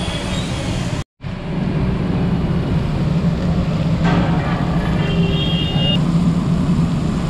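Steady rumble of busy road traffic with a low hum, cut off completely for a moment about a second in. A short high beep, like a vehicle horn, sounds about five seconds in.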